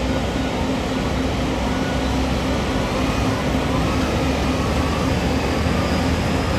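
Heavy mining machinery running steadily: the deep, even diesel engine noise of a large hydraulic excavator and haul trucks at work.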